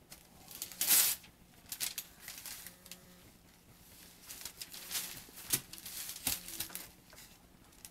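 Thin phone book paper crinkling, rustling and tearing in irregular bursts as a baby handles and crawls over loose pages, the loudest burst about a second in.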